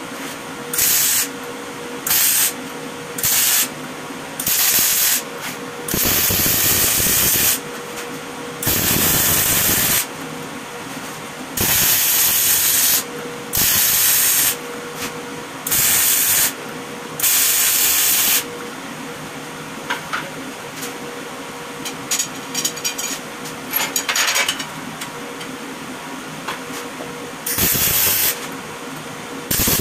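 Electric arc welding of steel profile pipe in short bursts: about a dozen crackling, hissing arcs, each half a second to a second and a half long, with a steady hum between them. In the middle there is a stretch of quieter, irregular clicks and crackles.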